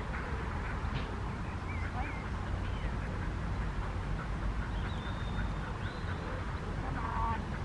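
Outdoor park ambience: a steady low rumble with scattered bird calls, including a short harsh call near the end.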